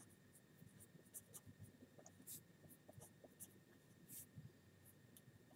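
Felt-tip marker writing on paper: faint, short scratchy strokes as letters are written one after another.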